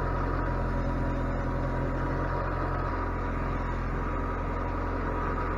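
Steady machine running noise that starts abruptly: a low hum under a noisy rush, with a faint steady whine above it.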